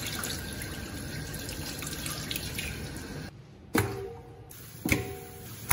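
Tap water running into a sink while raw chicken drumsticks are washed under it, stopping suddenly. Then two sharp knocks about a second apart, each with a short metallic ring, as drumsticks are dropped into a stainless steel bowl.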